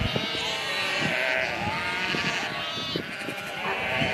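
Sheep bleating.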